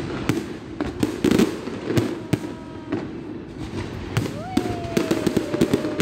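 Fireworks display: shells bursting in a string of sharp bangs and crackles, several a second at times, over the murmur of a watching crowd. A long, slowly falling tone runs through the last couple of seconds.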